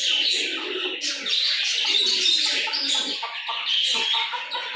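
Many birds chirping and calling together in a dense, continuous chatter.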